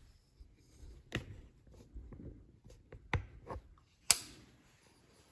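Handling noise: a few sharp knocks and clicks, the loudest about four seconds in.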